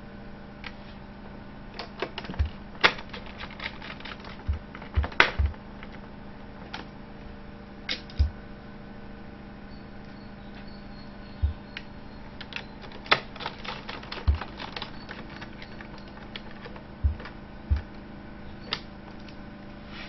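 Irregular sharp clicks and taps of a hand tool and small parts against a laptop's plastic base chassis during reassembly, over a steady low hum. A cluster of the loudest taps comes around a quarter of the way in.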